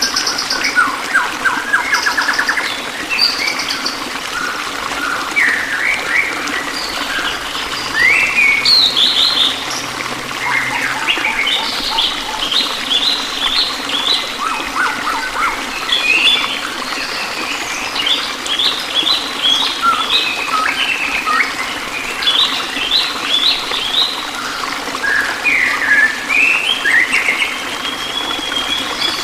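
A chorus of songbirds chirping and trilling, many short calls overlapping without a break, over a steady hiss of running water.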